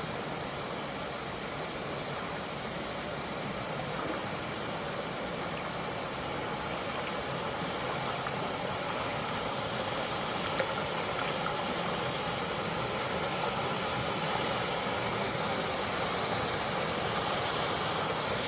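Steady rushing of a creek's flowing water, growing slowly louder.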